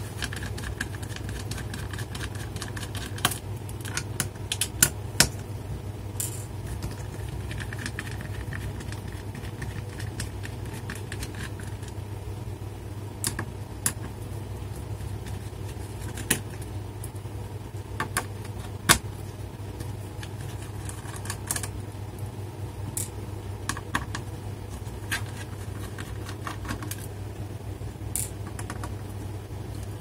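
Scattered light clicks and ticks of a small screwdriver turning out the screws in a plastic laptop base, with the occasional small screw being handled, over a steady low hum.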